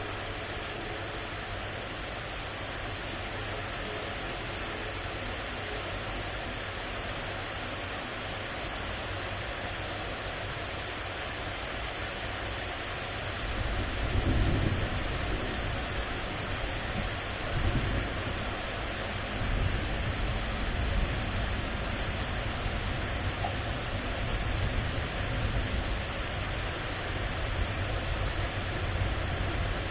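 Steady hiss of rain. About halfway through, irregular low rumbling comes in on top and continues.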